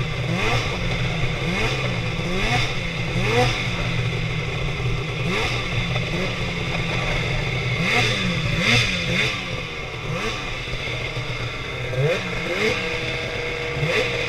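Snowmobile engine running under the rider's throttle, its pitch rising and falling again and again as it is revved up and eased off.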